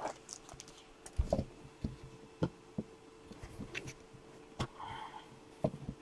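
Scattered light clicks and knocks of hard plastic card cases being handled and set against their box, irregular and a few each second.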